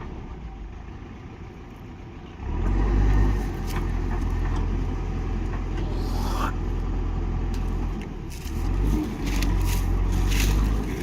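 JCB backhoe loader's diesel engine working under load, getting louder about two and a half seconds in and again near the end, with scraping and a few sharp knocks as the machine digs.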